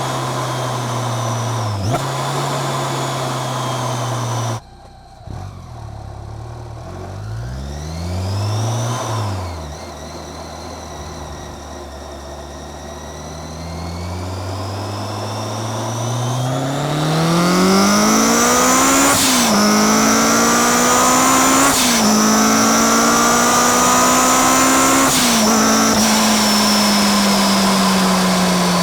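Supercharged 2008 Honda S2000's 2.2-litre four-cylinder engine with a Kraftwerks supercharger, its whine riding high above the engine note. The sound drops suddenly about four seconds in, followed by a rev that rises and falls and a stretch of low steady running. From about halfway the engine and supercharger whine climb together, broken three times by a sharp crack and a brief drop in pitch as gears change.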